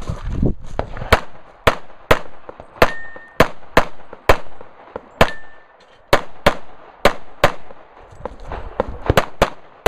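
Rapid gunfire: about fifteen single shots in quick strings with short pauses between them. After two of the shots comes a brief ringing tone.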